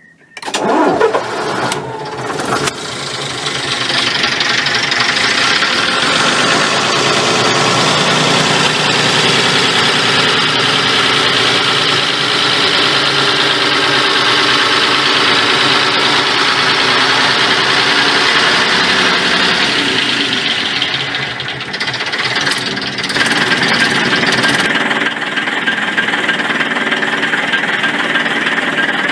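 AEC Regent III RT bus's 9.6-litre six-cylinder diesel engine starting up: it fires and catches within about a second, loudest as it fires. It settles into a steady idle by about four seconds in.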